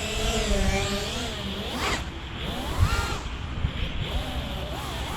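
FPV quadcopter's brushless motors and propellers whining, the pitch swinging up and down with the throttle, with two quick rising revs about two and three seconds in. Wind rumble on the microphone underneath.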